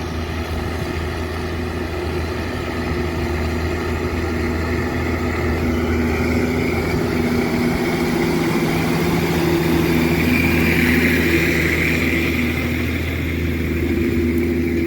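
Diesel tractor engine running steadily, growing louder about two thirds of the way through and then easing off.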